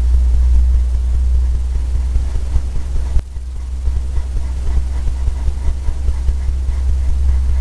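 A steady low hum dominates throughout, dipping briefly about three seconds in, with faint light ticks repeating a few times a second over the second half.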